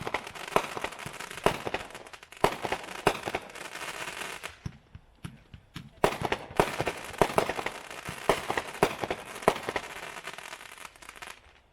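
World Class Angry Leprechaun 500-gram consumer firework cake firing: sharp reports over dense crackling, in two volleys with a pause of about a second roughly five seconds in.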